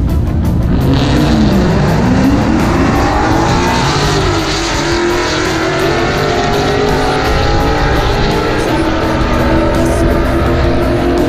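Drag racing car engine at full throttle running down the strip. Its pitch drops and climbs again twice in the first few seconds, then holds high and steady.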